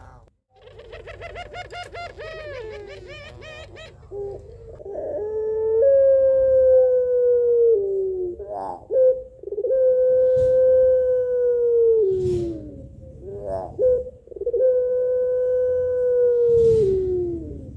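Female puter pelung (domestic ringneck dove) calling for a male. First comes a fast warbling run of notes, then three long drawn-out coos, each held steady for about two seconds and sliding down at the end. Short trilled notes come between the coos.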